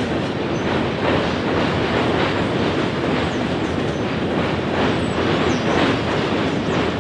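Freight cars of a long mixed freight train rolling past: a steady rumble of steel wheels on rail, with regular clacks as the wheels run over rail joints.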